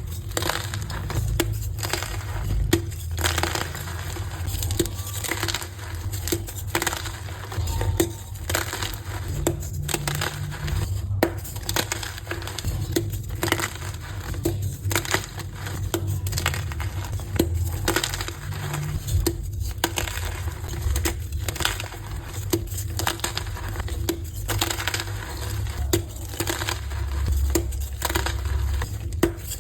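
Blocks of gym chalk (re-pressed chalk 'reforms') being crushed and crumbled by hand, a dense run of crisp crunches and cracks.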